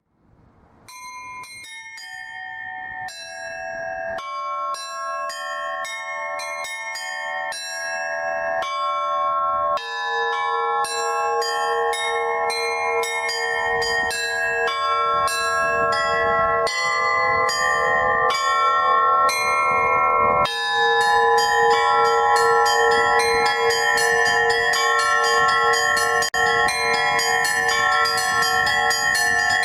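Russian Orthodox bell ringing (zvon) on a church bell tower's set of tuned bells. It opens with sparse, separate strikes on the small and middle bells that grow louder; about ten seconds in a larger bell begins striking steadily beneath them, and from about twenty seconds the small bells ring in fast, dense patterns.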